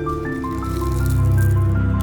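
Background music: a melody of held notes stepping from one pitch to the next over a deep, sustained bass.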